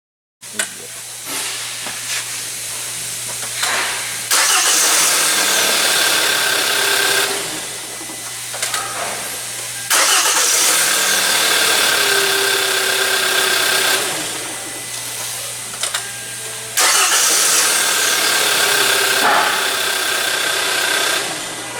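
Hyundai Elantra GT engine started three times in a row, catching promptly each time and then running, its speed easing down after each start. The repeated clean starts show the intermittent no-start not coming back once the crankshaft position sensor connector has been treated with contact enhancer.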